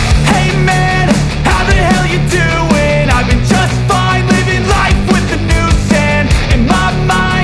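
Loud rock music with a steady drum beat and a melody line over it.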